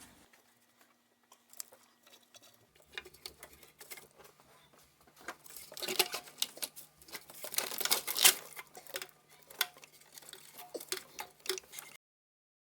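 Irregular clicks, taps and rattles of hand tools and engine parts being handled, with two louder flurries about six and eight seconds in. The sound cuts out completely near the end.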